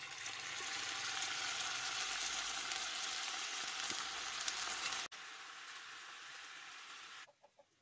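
Canned sardines in tomato sauce poured into a hot oiled pan with onion and garlic, sizzling loudly. About five seconds in it drops suddenly to a softer sizzle, which stops near the end.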